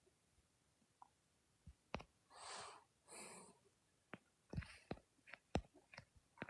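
Near silence with two soft breaths, a little after two seconds and again about three seconds in, and a handful of faint short clicks and pops scattered through the second half.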